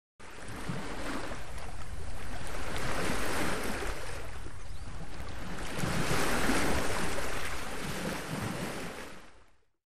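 Sea waves breaking and washing up on a sandy beach, the surf rising and falling in swells, then fading out near the end.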